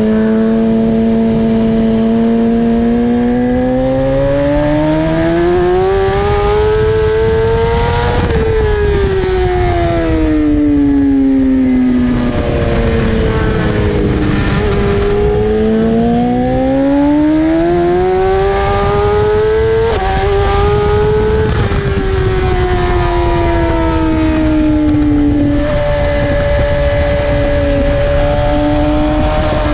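BMW S1000RR's inline-four engine under hard riding, its pitch climbing slowly for about eight seconds, falling away, then climbing and falling again with a brief step near two-thirds through, over a steady rush of wind.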